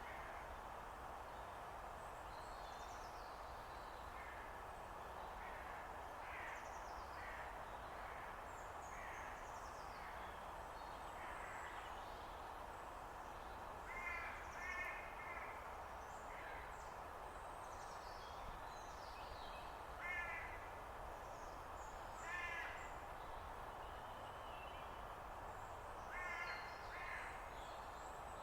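Crows cawing now and then: a few harsh calls, singly or in pairs, in the second half. Small birds chirp faintly throughout over a steady background hiss.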